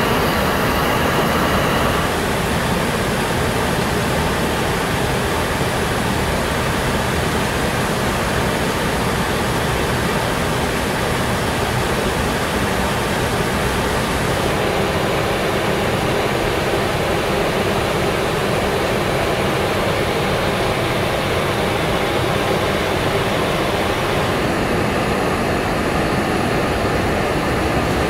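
Steady rushing air noise in a Boeing 737 MAX flight deck. Its tone shifts slightly about two seconds in, midway, and again near the end.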